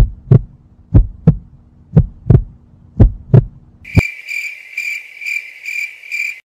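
Heartbeat sound effect: low double thumps about once a second, four times over. About four seconds in, a cricket-chirping sound effect starts, a high chirp pulsing evenly a couple of times a second. This is the stock comedic cue for an awkward silence.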